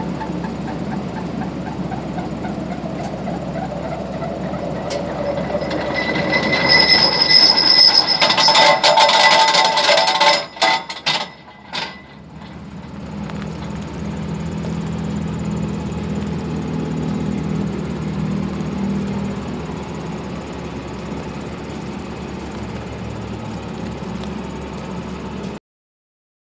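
Tractor-driven Quivogne BP 320 flail mulcher running, its rotor of spoon hammers spinning, with a high metallic whine. The sound builds up from about six seconds in, breaks up and drops away around eleven seconds, and then a lower, steady tractor engine hum runs on.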